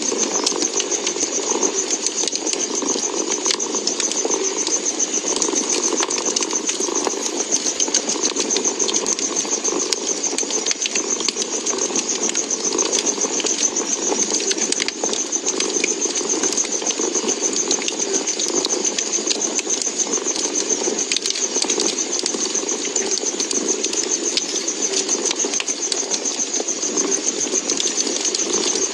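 A cat purring steadily, layered with a wood fire crackling in a fireplace: a continuous low rumble with many small, sharp pops scattered throughout.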